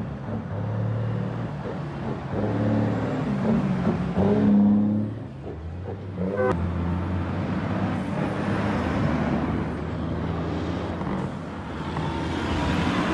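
Heavy diesel dump-truck engines pulling away one after another, revving up in pitch as they accelerate.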